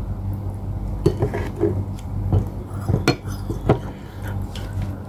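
Spoon clinking and scraping against a ceramic plate, a handful of separate sharp clinks, over a steady low hum.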